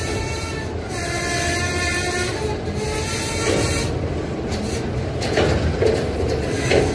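Herzog ribbon-rail train rolling slowly along the track: a steady low rumble with thin, high whining tones that come and go.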